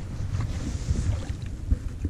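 Wind buffeting the microphone in a low, uneven rumble, with a light knock near the end.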